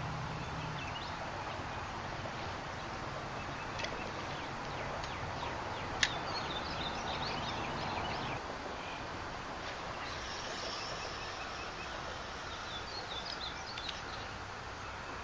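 Outdoor ambience with birds chirping at intervals over a steady background hiss and a low hum that fades about eight seconds in. A single sharp click sounds about six seconds in.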